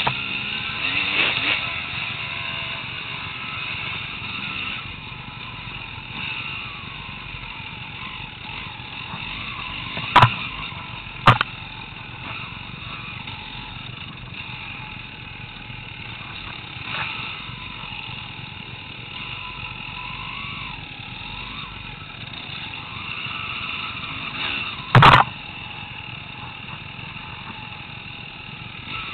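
Enduro dirt bike engine running as it is ridden along a trail, its pitch rising and falling with the throttle. Sharp knocks about ten and eleven seconds in, and another near the end, are the loudest moments.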